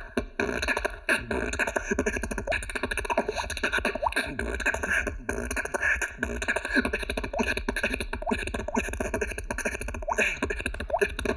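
Solo beatboxing: a quick, steady vocal-percussion groove built on hi-hat sounds, with mouth-made water-drop clicks mixed in.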